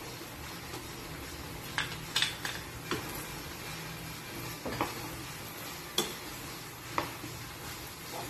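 Wooden spatula stirring creamy pasta in a nonstick frying pan over a steady sizzle, with several sharp clicks and knocks of the spatula against the pan.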